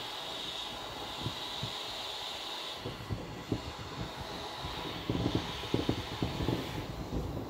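A steady hiss of air escaping from the inflatable vinyl whale stops about three seconds in. Then the vinyl creaks and thumps irregularly as a person's weight shifts on it.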